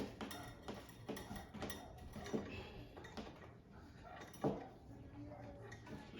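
Irregular light clicks and knocks of small hard objects being handled, with a louder knock about four and a half seconds in.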